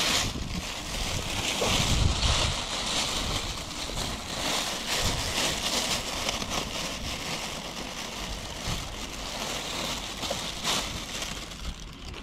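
Plastic and paper bags rustling and crinkling as dry sweet potato vermicelli is pulled out by hand and a handful is separated from the bundle, the brittle strands scraping together, with a few sharper crackles. Low rumbles of wind on the microphone come and go underneath.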